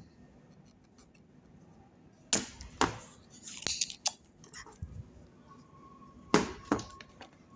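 Spring-loaded desoldering pump (solder sucker) being cocked and fired to pull molten solder from a capacitor's leads on a circuit board. It gives two pairs of sharp clicks, each pair about half a second apart, the first a little after two seconds in and the second near the end, with light handling noise in between.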